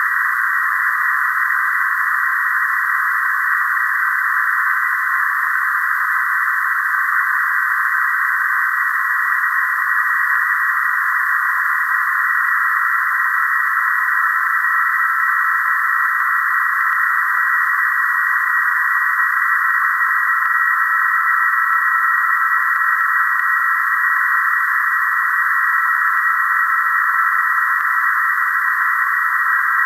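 Software-defined radio receiver audio on the 20-metre PSK31 frequency (14.070 MHz): steady band-limited hiss with faint PSK31 signal tones inside it, one fading out about nine seconds in and another coming in around twelve seconds.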